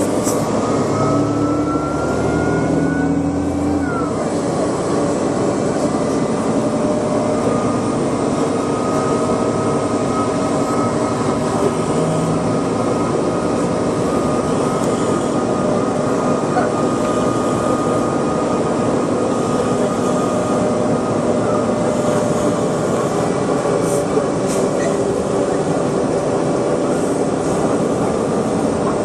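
City bus running, heard from inside the cabin: a steady engine and drivetrain drone with a whine that rises in pitch over the first few seconds, then settles.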